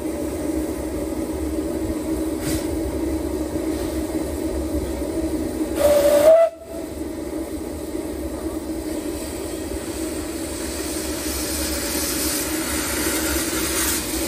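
Narrow-gauge steam train running with a steady hum and hiss, and a short steam whistle blast about six seconds in that rises slightly in pitch.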